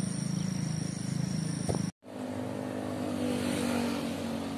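Town street traffic: cars and motorcycles driving past, one vehicle swelling louder as it goes by about three and a half seconds in. Before that, a different steady low rumble with a thin high whine cuts off abruptly about two seconds in.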